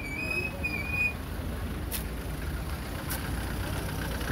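Steady low rumble of street traffic. A thin, wavering high whistle-like tone runs in the first second, and two sharp clicks come about a second apart.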